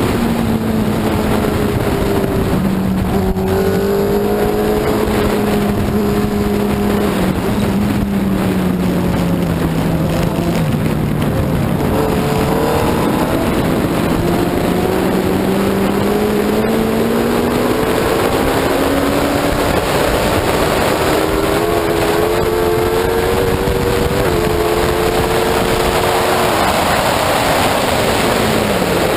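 F1 racing sidecar's engine at racing speed, its note sinking slowly, then climbing again and stepping with gear changes, over a loud rushing noise.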